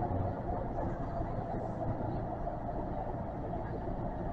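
Kintetsu train running on the Kyoto subway's Karasuma Line, heard from inside the car: a steady, low rolling rumble of wheels and motors.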